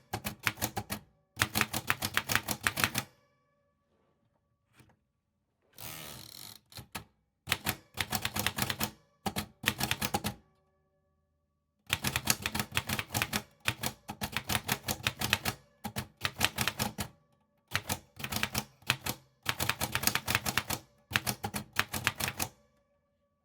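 Typewriter keys being struck in quick runs of sharp clacks, with short pauses between bursts and a brief noisier sound about six seconds in.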